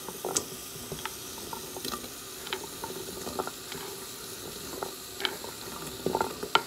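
Light, scattered taps and clicks of sliced carrot pieces being picked up by hand off a bamboo cutting board, with a quicker flurry of clicks near the end, over a steady faint hiss.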